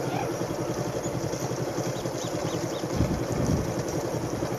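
Motorcycle engine running steadily at road speed, its rapid even firing pulses carrying through. A brief low buffet comes about three seconds in, and a few faint high chirps sound just before it.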